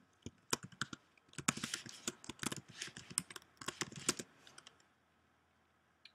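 Typing on a computer keyboard: a quick run of keystrokes for about four and a half seconds, then it stops, with one more click near the end.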